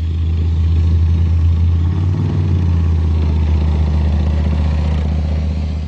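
Tracked battle tank running on the move, its engine a loud, steady low drone under the noise of its tracks, fading toward the end.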